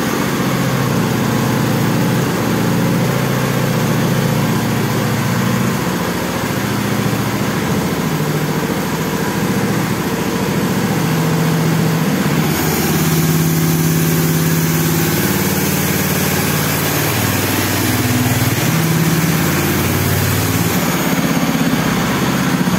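A homemade go-kart's small engine running steadily, its speed shifting up and down a few times in the second half.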